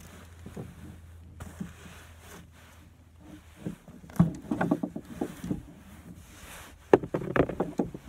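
Rustling, creaking and clicking as a dead branch snagged on the fishing line is handled and pulled up by hand, with a dense burst of sharp clicks and rustles about seven seconds in.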